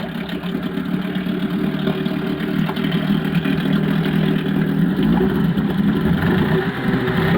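Suzuki 5 hp two-cylinder two-stroke outboard motor, cowling fitted, running steadily just after being started.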